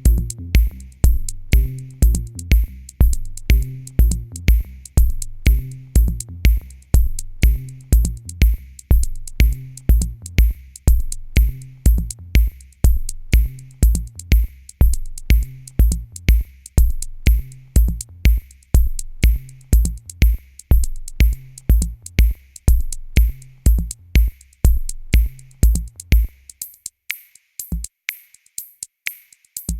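Background electronic music with a steady drum-machine beat and bass. Near the end the bass and kick drop out, leaving only the high ticking percussion.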